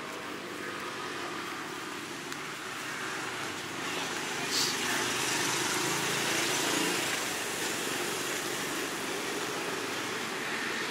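Street traffic noise: a steady hiss and rumble that swells as a vehicle passes, from about four seconds in until about seven seconds in. A brief sharp sound comes just before the middle.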